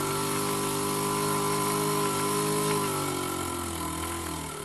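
Small model steam engine running fast on steam from a steam cleaner: a steady buzzing hum over a hiss of steam. The pitch and level sag a little near the end as it slows.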